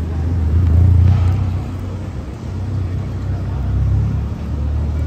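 Car engine running close by: a low rumble that swells about a second in and again near the end.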